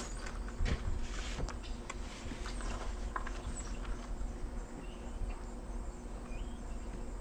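Scattered light clicks and taps as small cut angle-iron pieces and a welding gun are handled on a plastic table, over a steady low hum. The welder is not yet switched on, so there is no welding arc.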